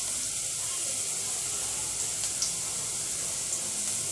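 Sliced onions frying in oil in an aluminium pot: a steady sizzling hiss with a few faint crackles.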